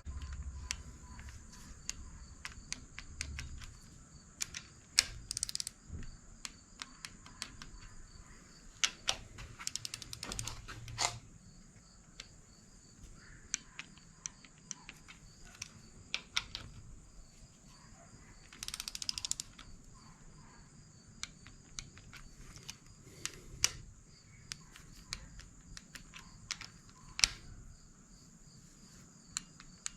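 Ratchet wrench clicking in short runs, with scattered metallic clicks and taps, as the cam cap bolts on a KA24DE cylinder head are turned down one rotation at a time.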